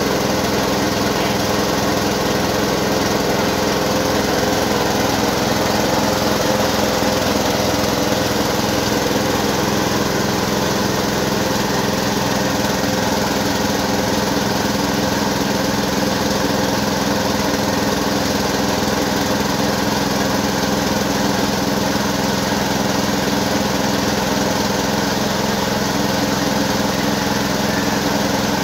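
Mini rice mill running steadily as it mills paddy into white rice, a constant mechanical drone.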